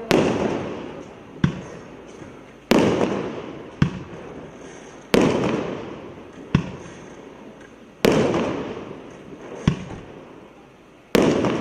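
1.1-inch multi-shot consumer fireworks cake firing shot after shot: a loud sharp bang with a long rolling echo every two and a half to three seconds, with a smaller pop between each pair.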